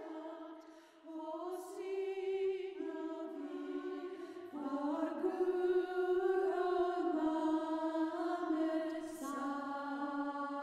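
Slow choral singing in long held notes that step from pitch to pitch. It dips briefly about a second in and grows louder about halfway through.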